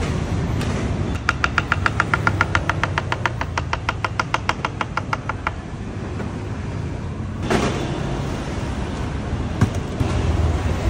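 Kitchen knife chopping a banana into slices on a wooden cutting board: a fast, even run of taps, about six a second, lasting about four seconds, over steady street traffic. A couple of single knocks follow later.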